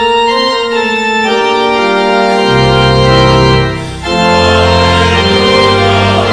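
Church organ playing sustained chords, with deep pedal bass notes coming in about two and a half seconds in and a short break in the phrase around four seconds.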